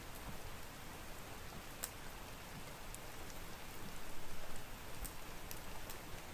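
Steady rain with a crackling wood fire: an even hiss, with a handful of sharp pops scattered through it.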